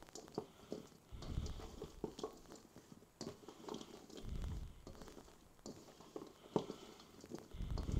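A spatula stirring roasted sweet potato cubes and chicken sausage in a large stainless steel mixing bowl: faint, irregular scrapes and taps as the food is turned over, with a few soft low thumps.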